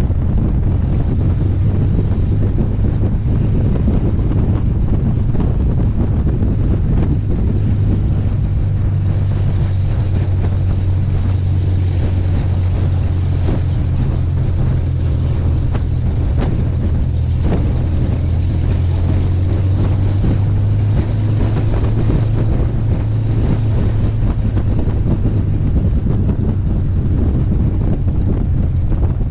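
Rolls-Royce Merlin V12 engine of a two-seat Hawker Hurricane running steadily as the aircraft rolls on grass, heard from the cockpit with wind on the microphone.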